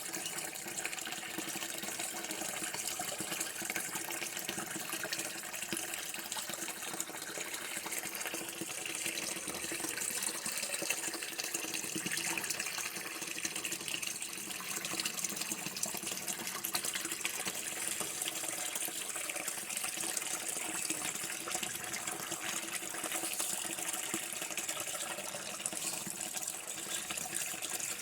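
Running water flowing steadily, a continuous even rush.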